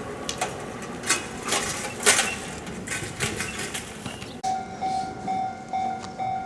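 A train running past with its wheels clattering over the rail joints. About four and a half seconds in, this gives way abruptly to a level-crossing warning bell ringing its repeated 'kan-kan' tone about two and a half times a second.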